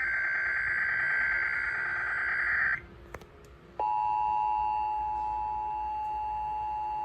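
An Emergency Alert System alert opening: the last burst of the SAME digital header, a warbling data screech, then after about a second's pause the steady two-tone EAS attention signal, held for about three and a half seconds. Together they announce a Required Weekly Test.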